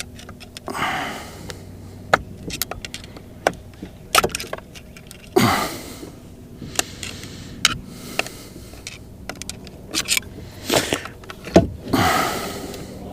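Hand work on a Mercury boat remote control: irregular plastic and metal clicks and knocks as parts are pried and wiggled, with a few longer rasping scrapes, while a stubborn piece refuses to come out.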